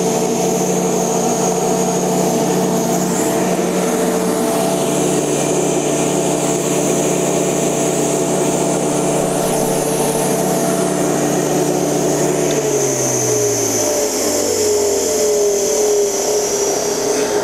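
Ruwac industrial vacuum's motor running steadily with its inlet blocked off, a hum with a high whine above it. Over the last few seconds the hum drops in pitch.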